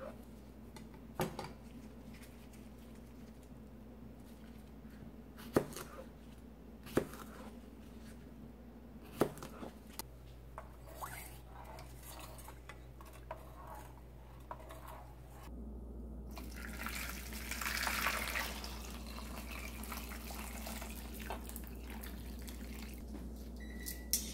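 Kitchen knife cutting cucumbers on a cutting board, with a few sharp taps as the blade meets the board. Then water in a pot, followed by a louder stretch of splashing, pouring water in the last third as brine goes over the cut cucumbers.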